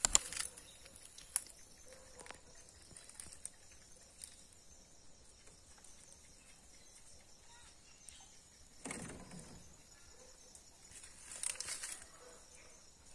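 Quiet night ambience with a steady high insect chirring, broken by a few sharp clicks near the start and two brief rustles, one about nine seconds in and one near the end.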